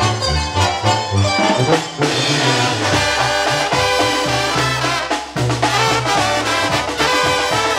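Live brass band music: trumpets and trombones play an instrumental passage over tuba and percussion, with the heavy tuba bass thinning out about two seconds in.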